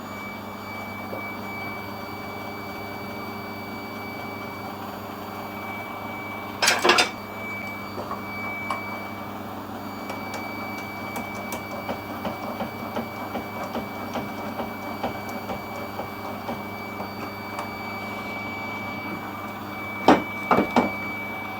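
Metal lathe running with a steady hum and a fixed high whine, with a short clatter of metal knocks about seven seconds in, light ticking in the middle and a couple of louder metal clanks near the end.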